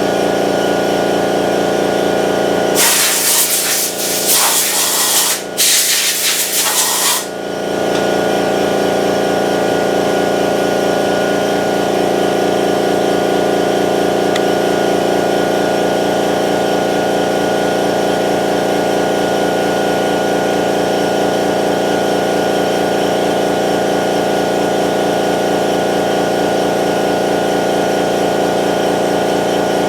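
Milling machine running steadily with an even machine hum while an end mill hollows out an aluminium block. About three seconds in, a loud hiss sounds for about four seconds, in two blasts with a short break between them.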